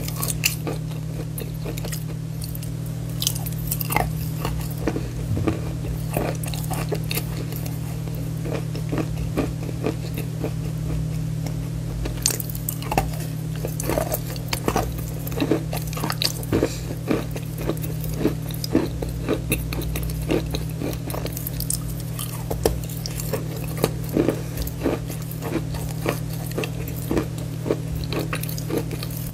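Bar chalk being bitten and chewed close to the microphone: a run of dry, brittle crunches and crackles as the block breaks and is ground between the teeth. A steady low hum runs underneath.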